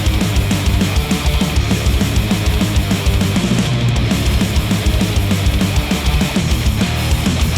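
Heavy rock music with distorted electric guitars over a fast, driving drumbeat, played back through a pair of studio headphones and picked up by measurement microphones.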